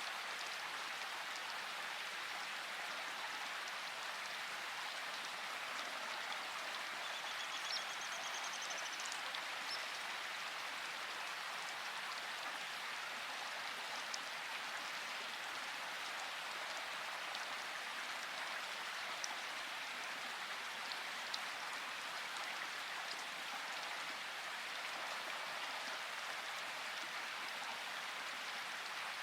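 Steady rain falling on forest foliage, an even hiss with a few sharp drips standing out. About seven seconds in, a bird gives a short rapid trill.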